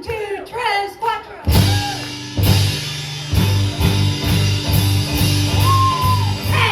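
A band kicks in about a second and a half in, after a few spoken words, with a steady beat in the bass and drums. A single high note is held near the end.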